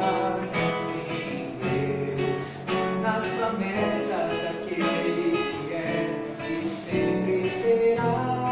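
Acoustic guitar strummed in a steady rhythm, chords changing over an instrumental passage at the close of a hymn.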